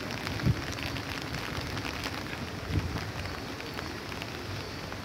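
Steady rain falling, with many small drop impacts pattering. Two brief low thuds come about half a second and just under three seconds in.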